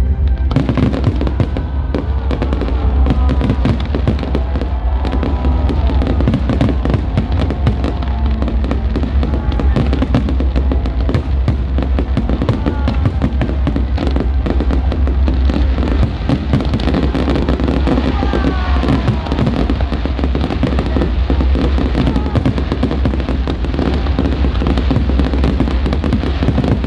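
Fireworks display: a dense, continuous barrage of bursts and crackles, with whistles that glide up and down in pitch, and music playing underneath.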